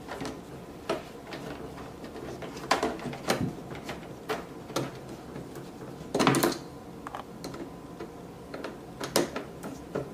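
Screwdriver turning a screw into the plastic housing of a Zojirushi hot water boiler: scattered small clicks and knocks, with one longer, louder noise about six seconds in.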